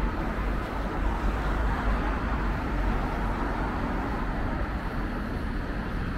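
Steady city street traffic noise: cars running past with a low engine and tyre rumble, swelling slightly in the first few seconds.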